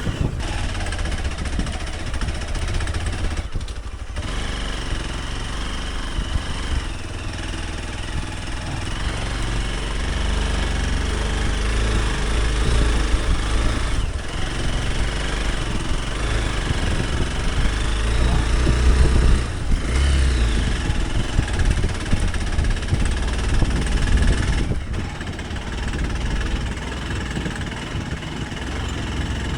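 Hero Xpulse 200 Pro's single-cylinder engine running at low revs, a steady rumble that cuts out briefly a few times.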